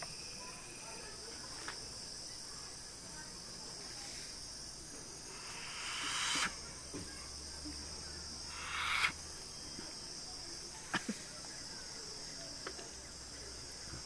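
Steady high-pitched buzz of insects, with two sharp rushes of breath at the nose a few seconds apart, each building up and cutting off suddenly. Two small clicks follow.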